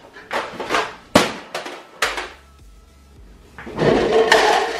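Red plastic party cups clattering as they are knocked about and gathered up on a table: several sharp light clacks in the first two seconds, a short lull, then a denser stretch of rattling near the end.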